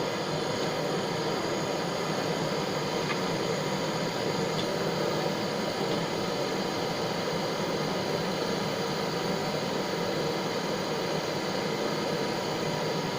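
Steady rushing noise of a gas torch flame heating a crucible of tin-lead solder, with no change throughout.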